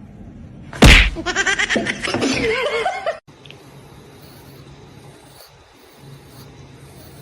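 A loud, sharp slap, followed by about two seconds of pulsing laughter. The laughter cuts off suddenly, leaving a low steady hiss.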